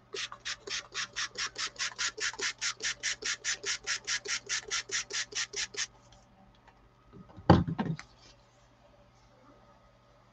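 A small bottle of liquid acrylic paint shaken hard, about five rattles a second for nearly six seconds. A louder knock follows about seven and a half seconds in.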